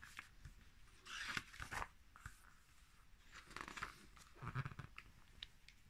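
Pages of a paperback picture book being turned by hand: a few faint, soft paper rustles and brushes.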